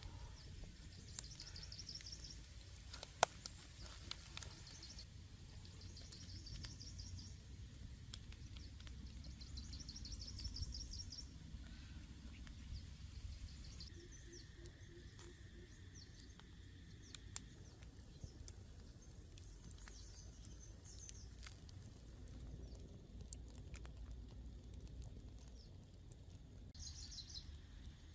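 Forest ambience with a bird singing: a short, high trilled phrase repeated every few seconds over a low, steady background rumble. Faint scattered clicks, with one sharp click about three seconds in.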